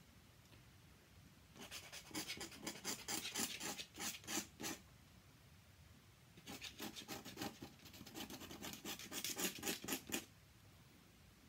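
Steel dip-pen nib scratching over paper in quick, repeated strokes. It comes in two spells of about three seconds each, the first starting about a second and a half in, with a short pause between.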